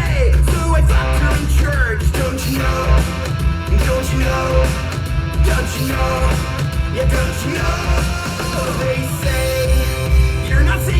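Focal CMS 65 active studio monitors playing a rock song with guitar and singing over a steady, heavy bass beat.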